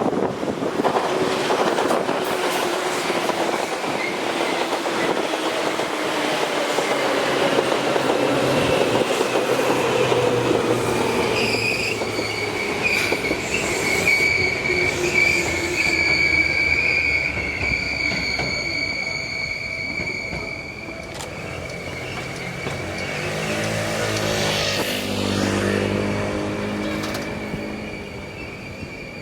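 Seibu Railway old 2000 series electric train arriving at a station. A whine falls in pitch as it brakes, then a steady high brake squeal starts about twelve seconds in and runs as it slows to a stop. A low hum swells near the end.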